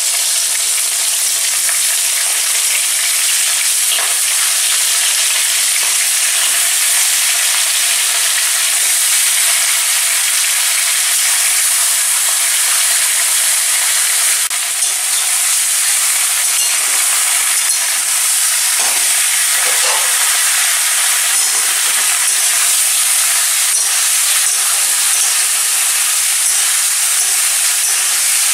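Raw chicken pieces frying in hot mustard oil in a kadai: a loud, steady sizzle, with a couple of faint knocks.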